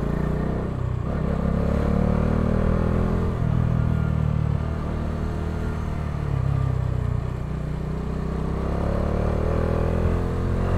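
Bajaj Dominar 400's single-cylinder engine running under way. Its note rises as the bike speeds up about a second in, settles, and rises again near the end.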